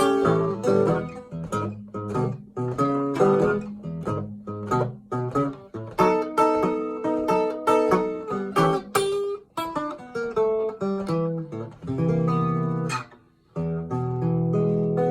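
1960s Stella H928 acoustic guitar played fingerstyle blues: picked treble notes over a thumbed bass line, with a short break about thirteen seconds in.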